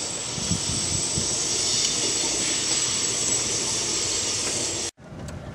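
Steady hiss of rushing air with a thin high whistle in it, cutting off abruptly about five seconds in, as a suction tool siphons the old brake fluid out of the clutch master cylinder reservoir.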